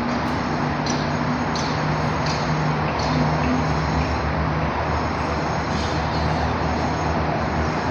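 Construction-site din: a steady drone of engines and machinery with traffic noise. Short high ticks repeat about every 0.7 seconds for the first three seconds or so.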